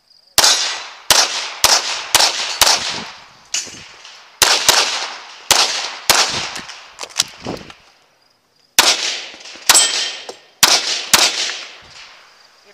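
CZ Tactical Sport Orange pistol firing a fast string of about fifteen shots, mostly in quick pairs, each with a short echo. The firing pauses for about a second and a half two-thirds of the way through.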